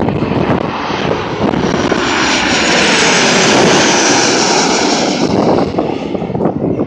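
Boeing 737-800 airliner on final approach passing low overhead: the noise of its CFM56-7B turbofan engines swells to a loud peak about halfway through and then fades as it moves away.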